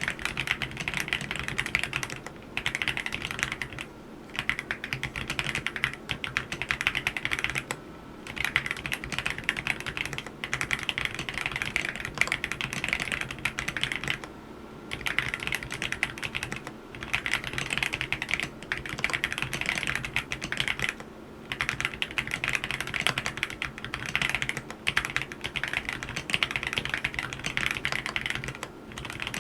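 AULA F87 mechanical keyboard with yellow switches being typed on in quick runs of keystrokes, with short pauses every few seconds.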